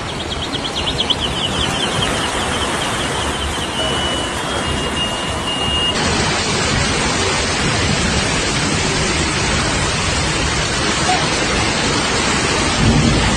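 Loud, steady rushing noise of water. It changes abruptly about six seconds in.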